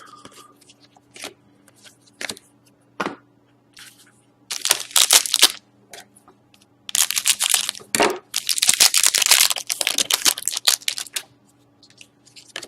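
Plastic card sleeves and pack wrapper crinkling and rustling in a few bursts, with light clicks of trading cards being handled, over a faint steady electrical hum.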